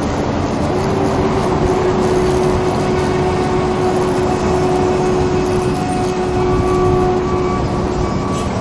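Steady mechanical rumble with a steady droning hum over it.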